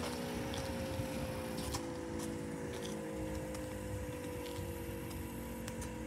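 Outdoor tornado warning siren on a lattice tower sounding a chord of several steady tones that slowly falls in pitch as it winds down. A few faint clicks are heard over it.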